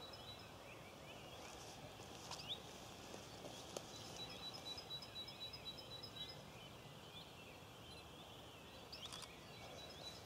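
Faint rural morning ambience: distant birds calling, with short rising chirps and a high pulsing note held for several seconds at a time. Two sharp clicks stand out, a few seconds in.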